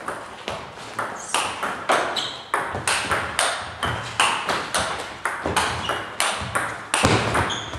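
Table tennis balls clicking off bats and tables in irregular rallies, about three sharp clicks a second. The clicks most likely come from play at neighbouring tables in the hall.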